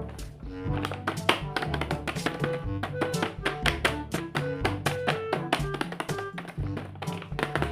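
Background music with quick, sharp plucked or struck notes over a pulsing bass line.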